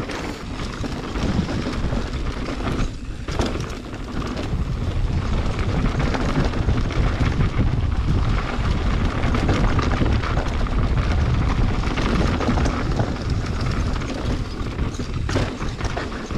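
Mountain bike riding down a dirt trail: steady wind buffeting on the camera's microphone over tyre rumble and rattle, with a short lull about three seconds in.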